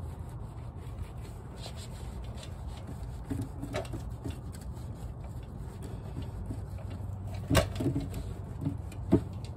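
Soapy rag scrubbing and wiping a greasy car subframe: quiet wet rubbing on the metal, with a few sharp knocks, the two loudest near the end.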